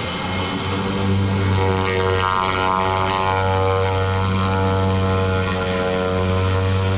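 Single-engine turboprop plane taxiing on a dirt airstrip: its engine and propeller give a steady, low-pitched drone that grows stronger about a second in.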